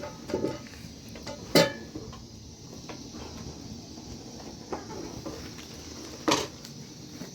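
A few scattered sharp knocks and clinks over a steady background hiss. The loudest comes about one and a half seconds in, and another near the end.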